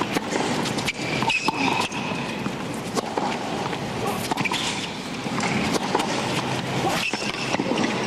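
Tennis rally on a hard court: a ball struck back and forth by rackets, with several sharp hits spaced a second or more apart over a steady hum from the stadium crowd.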